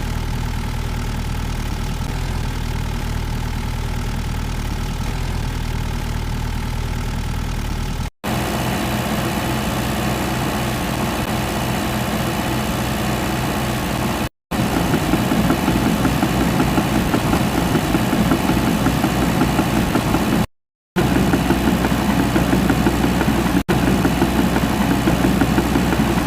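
John Deere 50G mini excavator's diesel engine idling steadily, then running louder and higher in a few stretches separated by brief dropouts.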